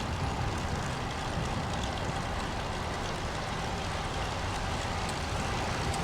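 Strong gusty wind buffeting the microphone: a steady, even noise heaviest in the low end.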